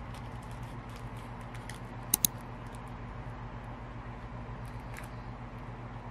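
Bubble-wrap packaging crinkling with scattered faint ticks as it is unwrapped by hand, with two sharp clicks close together about two seconds in, over a steady low hum.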